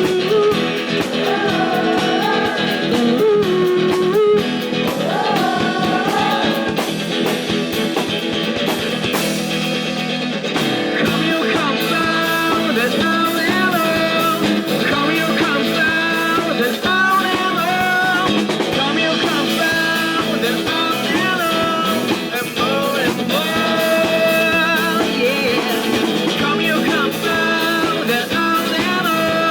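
Live rock band playing, with guitar prominent and melodic lines that bend and waver in pitch.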